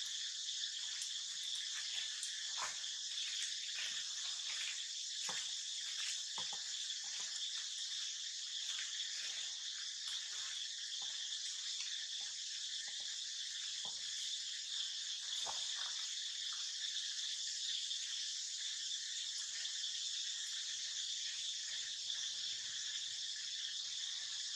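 A steady, high-pitched chorus of insects, with scattered faint clicks and short sounds over it.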